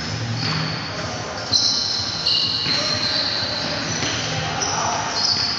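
Basketball shoes squeaking on a hardwood gym floor: many short, high squeals that overlap as players cut and stop, with a couple of thumps about a second and a half and two seconds in.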